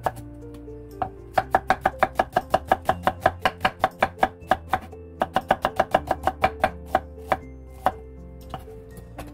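Kitchen knife slicing an onion into thin strips on a wooden cutting board: quick, even chops of the blade hitting the board, about six a second, in two runs with a short break in the middle, then a few single chops near the end.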